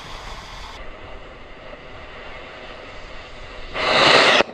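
Model rocket motor launching with a hiss that stops abruptly under a second in. Near the end, a much louder rushing noise lasts less than a second and cuts off suddenly.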